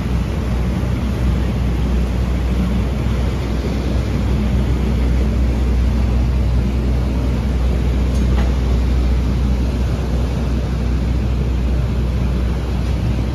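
Ferry engines running with a steady low rumble as the boat pulls away from the dock, with its propeller wash churning the water.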